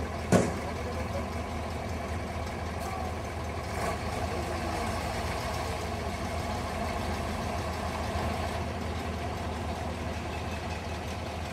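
Heavy off-road truck's diesel engine running steadily at low revs as the truck crawls slowly along. A single sharp knock sounds about half a second in.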